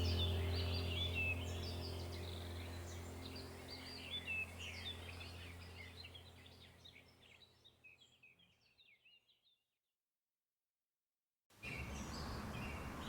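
Small birds chirping and twittering over a low steady drone, the whole bed slowly fading out to silence about two-thirds of the way through; faint chirping returns near the end.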